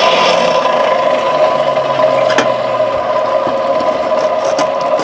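Forge blower running steadily, an even whirring hum with a constant whine, while the fire is driven up to welding heat. A couple of faint clicks sound in the middle.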